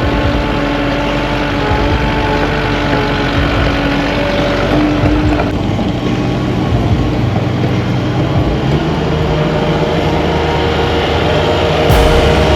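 Caterpillar 305 mini excavator's diesel engine running steadily, its pitch shifting about halfway through, with a few sharp knocks near the end.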